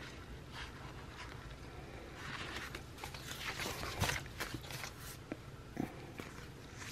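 Faint rustling of sticker sheets being handled and sorted through, with a few soft taps about four to six seconds in.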